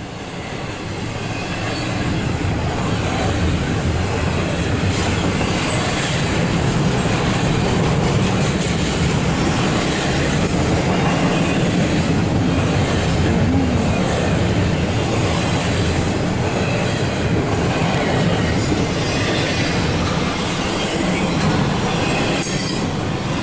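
Norfolk Southern double-stack intermodal freight cars rolling past: a steady rumble and rattle of steel wheels on the rails, with occasional clacks, building over the first couple of seconds and then holding.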